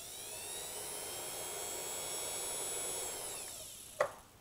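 A 500 W, 100 V DC CNC spindle motor spinning up free to a steady high whine under its speed-control knob, then winding down near the end. A sharp click follows about four seconds in as the knob is switched off.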